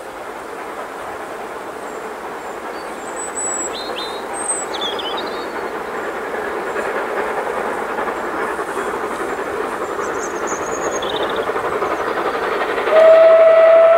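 Steam locomotive approaching while working, its exhaust growing steadily louder. About a second before the end a long steady steam whistle starts and holds, the loudest sound.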